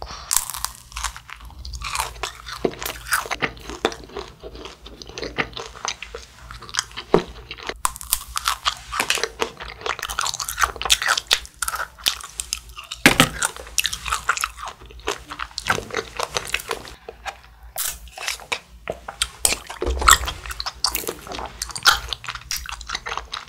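Close-miked biting and chewing of a macaron: the crisp shell crunches and crackles in many small, irregular cracks, with wet chewing sounds between them.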